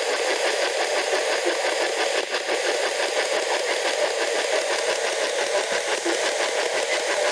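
P-SB11 spirit box sweeping AM and FM radio stations every 150 milliseconds, giving a steady choppy static hiss broken into rapid fragments.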